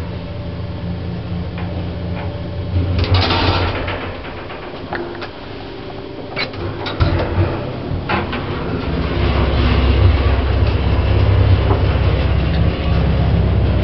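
Original 1960s J&E Hall service lift in motion: its machinery gives a steady low hum. The hum fades out about four seconds in. A few sharp clicks and knocks follow, then the hum starts again about eight seconds in.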